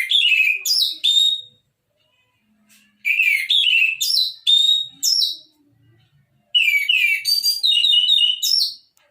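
Orange-headed thrush singing: three bursts of quick, varied song phrases, each one to two seconds long, with short pauses between them.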